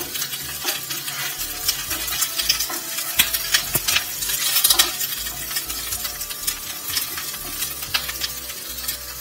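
Pointed gourd (patal) slices sizzling as they fry in a little hot oil in a non-stick pan. A wooden spatula scrapes and knocks against the pan again and again as they are stirred.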